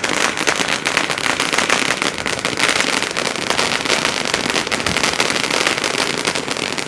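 A firework going off in a rapid, unbroken run of loud crackles and pops.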